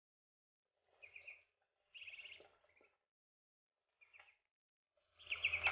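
Duckling peeping in four short bursts of quick, high peeps, the last and loudest near the end.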